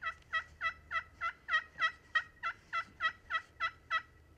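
A long, even series of hen-style wild turkey yelps, about three a second, stopping about four seconds in.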